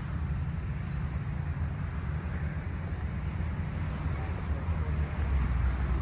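Steady low outdoor rumble with a fainter hiss above it.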